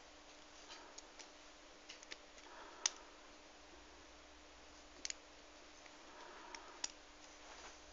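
Faint, irregular metallic clicks and ticks of lock-picking tools working in a Yale 851 padlock, the sharpest about three seconds in.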